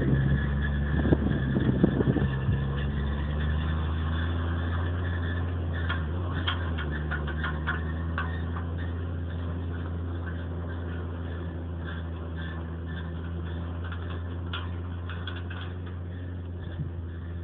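Tractor engine running steadily as it drives a rear-discharge spreader throwing lime, the drone slowly fading as the rig moves away. Scattered light clicks and rattles in the middle stretch.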